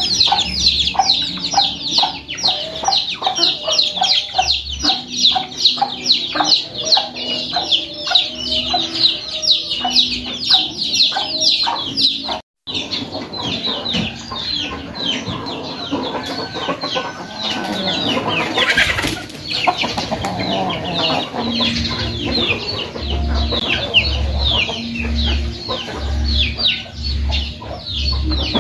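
Backyard chickens clucking, over a dense stream of rapid, high, falling peeping chirps, several a second. Held low notes and a regular low beat sit underneath, plainest in the last few seconds, and the sound drops out briefly about twelve seconds in.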